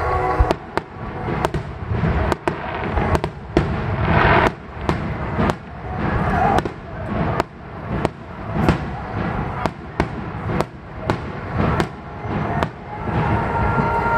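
Aerial firework shells bursting one after another over the harbour. Sharp booms come irregularly, about one or two a second.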